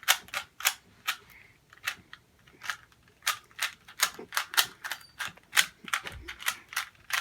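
Plastic Rubik's cube being turned by hand: a run of sharp, irregular clicks as its layers snap round, about two or three a second.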